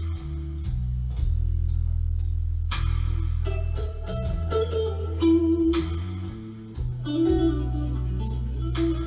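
Instrumental stretch of a blues-rock song with electric guitar, a sustained bass line and a steady drum beat. It is played back over Rogers LS7t bookshelf speakers with a Yamaha subwoofer.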